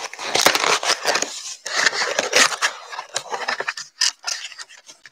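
Cardboard shipping box being opened by hand: the flaps scraping and kraft packing paper rustling and crinkling as it is lifted out, dense for the first few seconds, then scattered crackles.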